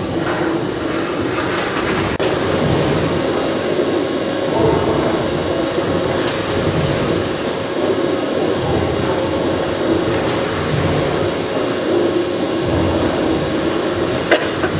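Victorian steam beam pumping engine running: a steady mechanical rumble with a few held tones, with no pause or change.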